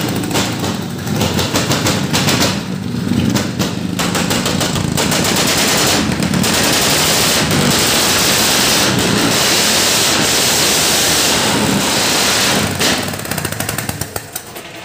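Modified Hindustan Contessa's carburetted engine running roughly, with rapid popping and crackling in the first few seconds, then loud and steady before dying away about thirteen seconds in.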